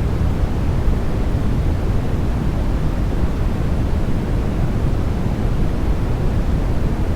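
Steady white-noise track for sleep, an even, unbroken rushing with most of its weight in the deep low end and little hiss up top.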